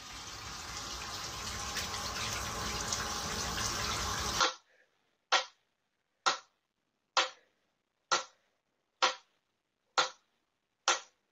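A steady rushing hiss for about the first four seconds. Then a mechanical metronome ticking: seven sharp, even clicks a little under a second apart.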